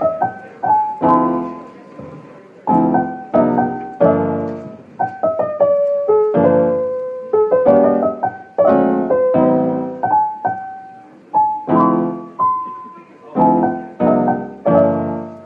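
Background piano music: chords struck about once a second, each fading away, with a melody line held above them.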